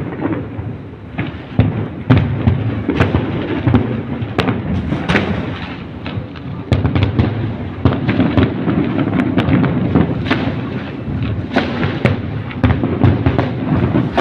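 Fireworks bursting in rapid succession: many sharp bangs and crackles over a continuous low rumble of explosions.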